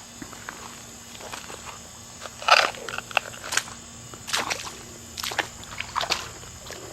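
Footsteps crunching unevenly over the creek's stones and gravel, with a steady high insect drone behind them.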